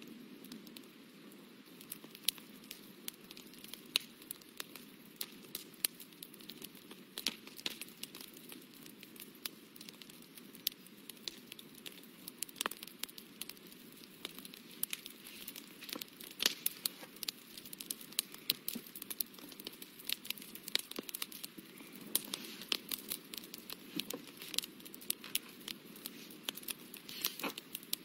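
Fine paintbrush dabbing and scratching on watercolour paper, close to the microphone: irregular small crackling ticks over a steady faint hiss, growing busier in the second half.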